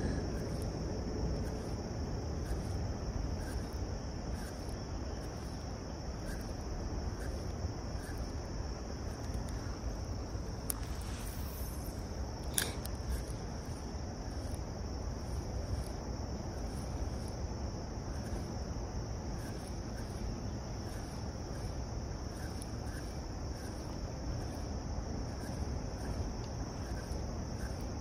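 Steady high-pitched insect chorus over a low, even rushing noise, with one sharp click about halfway through.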